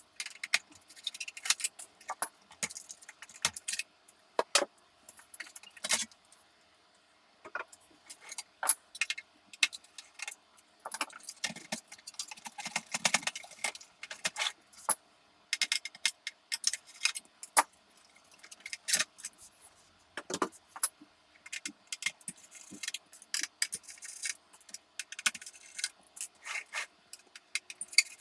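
Irregular metallic clinks, taps and rattles of small metal computer parts and screws being handled during hands-on work on a rusty NEC PC-9821An, with a short pause about a third of the way in.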